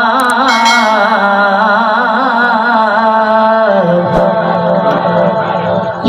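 A man reciting a Saraiki naat into a microphone, singing long held notes with wavering ornaments; about two-thirds of the way through his voice steps down to a lower pitch.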